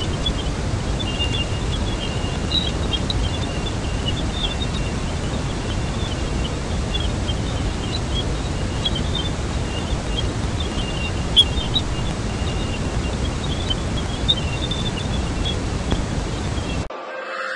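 NASA space audio, a recording of spacecraft data played as sound: a steady deep hiss with faint, scattered high chirps over it, cutting off abruptly near the end.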